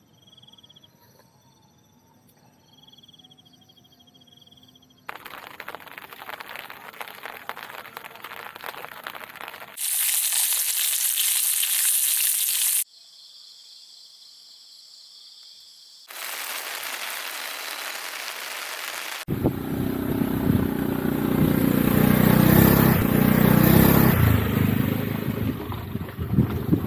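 A run of cut-together outdoor sounds: faint steady insect calls, stretches of even hiss, then from about 19 s in the wind-buffeted rumble of a motorcycle ride, wind beating on the microphone.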